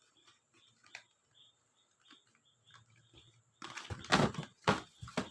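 Products and their packaging being handled: a few light taps, then, a little over halfway in, a loud stretch of rustling with several sharp knocks.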